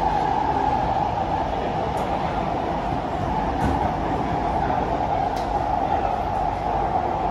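Cabin noise of a Kawasaki–CRRC Sifang C151B metro train running through an underground tunnel: a steady rumble and roar of wheels on rail, strongest in a mid-pitched band, with a few faint ticks.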